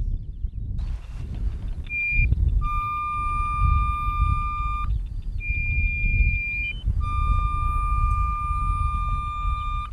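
Metal mine detector giving steady, high, single-pitch tones that switch on and off several times, the longest held for two to three seconds. These are its signal that metal is under the search head. A steady low rumble runs underneath.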